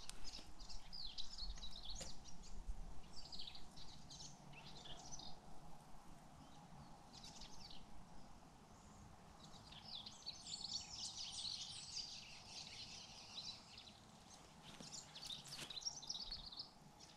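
Several birds chirping and trilling over faint outdoor background noise, busiest about two-thirds of the way through.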